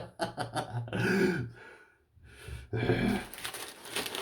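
A man clearing his throat with short grunting vocal sounds, then rustling and handling noise starting a little past the three-second mark.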